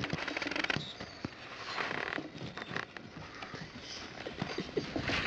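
An irregular patter of footfalls and light knocks on a wooden outdoor staircase, from a border collie's paws and the steps of the person filming, with short bursts of rustling near the start and about two seconds in.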